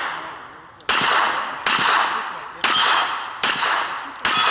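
Revolver shots at steel plate targets, five in quick succession about 0.8 s apart, each followed by the ringing of the struck steel.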